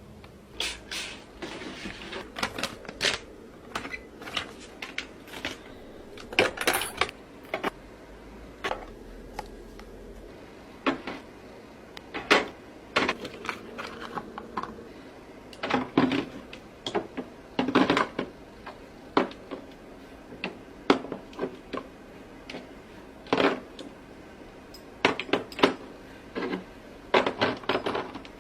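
Skincare products being set down and arranged in a mini fridge: a string of sharp clacks and taps of containers against each other and the shelves, at irregular intervals.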